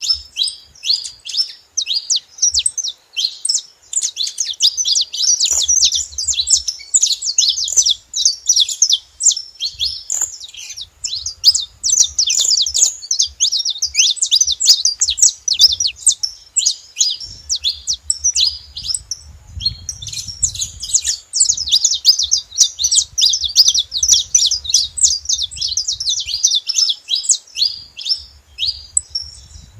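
Saffron finch singing: a fast, nearly continuous run of sharp, high chirps with only a brief lull partway through.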